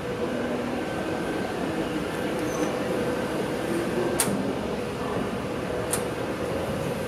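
Steady rushing hum of ventilation in an enclosed metal stairwell, with a faint steady tone under it; two sharp clicks, about four and six seconds in.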